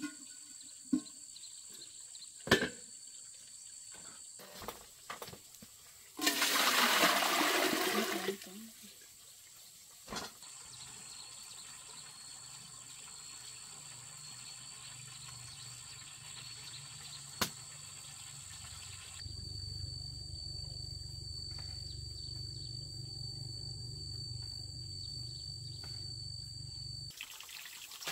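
Water rushing for about two seconds, after a few sharp knocks. Later a steady low hum sets in and grows louder.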